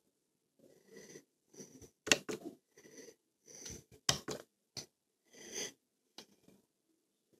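Breathing close to a phone's microphone in short wheezy puffs, about eight of them, with a few sharp clicks from the phone being handled. The loudest clicks come about two and four seconds in.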